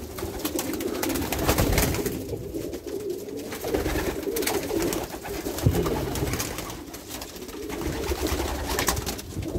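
A flock of racing pigeons cooing, several birds at once in a continuous overlapping warble, with scattered sharp clicks among them.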